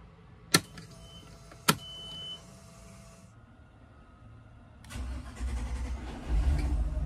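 Two sharp clicks with brief electronic beeps as the boat's ignition keys are switched on. About five seconds in, the starter cranks and the freshly tuned MerCruiser 6.2 V8 marine engine catches and settles into running.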